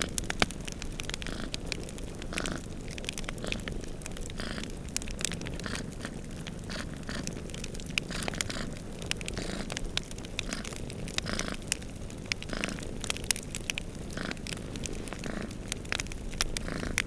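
Domestic cats purring with a low pulsing rumble that swells and fades about once a second, under the frequent sharp snaps and pops of a wood fire crackling in a fireplace.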